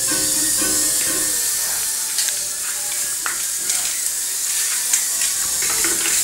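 JJRC H67 micro drone flying, its tiny propellers giving a steady high-pitched hiss-like whine.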